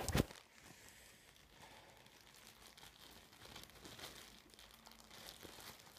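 A sharp knock-like noise right at the start, then faint rustling and crinkling of parcel packaging being handled.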